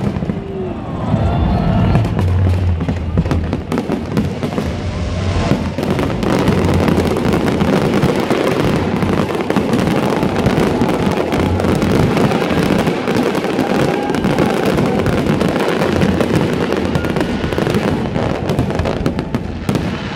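Aerial fireworks display: a continuous barrage of shells bursting in quick succession, bangs and crackles overlapping throughout, with music playing underneath.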